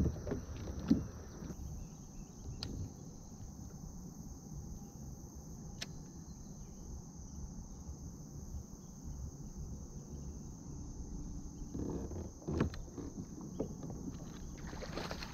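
Outdoor ambience: a steady high insect drone over a low rumble of wind and water, broken by a few sharp knocks and clicks of fishing gear against the kayak. The loudest knock comes about a second in, with another cluster near the end.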